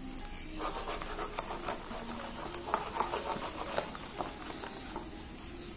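Thick batter being beaten by hand in a steel bowl: a quick, irregular run of soft wet slaps and squelches as the hand whips it to make it light and airy.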